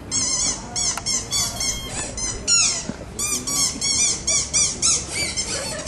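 Birds chirping: quick, high, arched notes repeated several times a second, with a short break about three seconds in.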